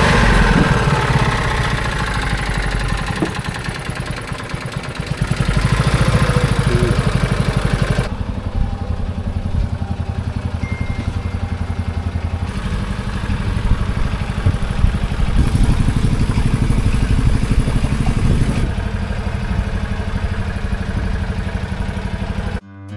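Engine of a wooden boat running steadily while the boat is under way, its sound shifting abruptly in level a few times.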